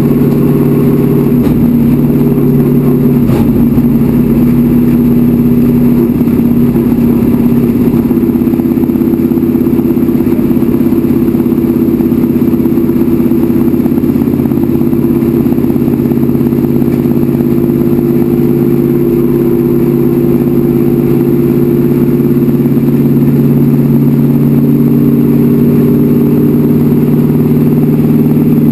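Racecar engine running hard at a nearly steady pitch, heard loud from inside the cockpit while the car laps the oval at speed.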